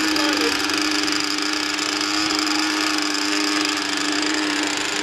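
Small model-aircraft glow engine (an ASP 52) idling steadily at one even pitch.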